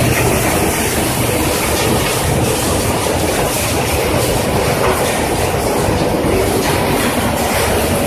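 Scrap metal crusher running, a loud, steady, dense clatter of metal being crushed.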